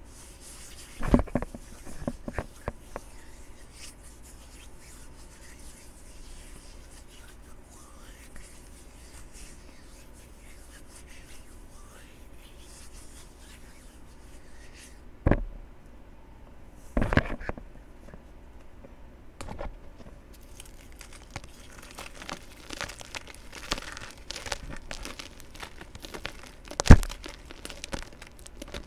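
Crumbly chalk-like blocks being broken and crushed by hand: mostly faint rubbing, with a few sharp crunches about a second in, around the middle and near the end, and a run of small crackling crumbles in the last third.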